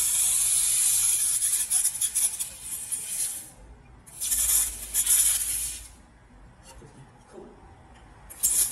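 1500 W handheld laser welder firing on a metal sheet, with a high hiss of spraying sparks. It comes in three bursts: one of about three and a half seconds, a pause, one of about two seconds, then a longer quiet gap and another burst starting just before the end.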